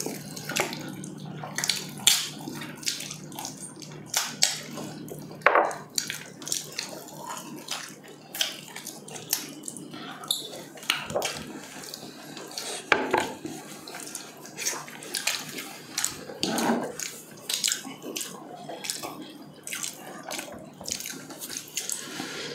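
Close-up eating sounds: wet chewing, lip-smacking and sucking as two people eat braised pork leg with their hands, in irregular short smacks. A faint steady low hum runs underneath.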